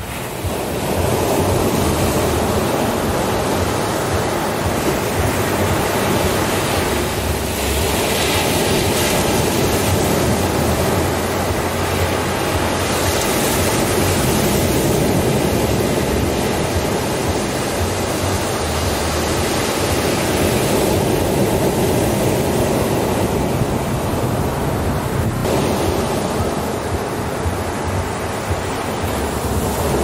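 Ocean surf breaking and washing up a sandy beach: a continuous rushing that swells and eases as the waves come in and draw back.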